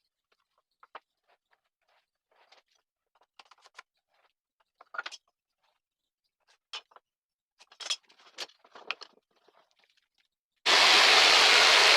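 Scattered light knocks and clicks of wooden pieces and tools being handled on a workbench, then near the end an electric power tool switches on and runs loud and steady.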